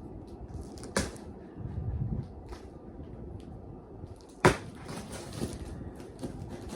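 Screwdriver jabbing into and scraping along the packing tape of a cardboard box, with a sharp knock about a second in and a louder one a little past halfway.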